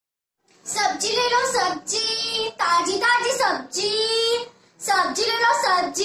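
A young girl chanting a vegetable seller's sing-song street cry, starting about half a second in, in long drawn-out phrases with short pauses between them.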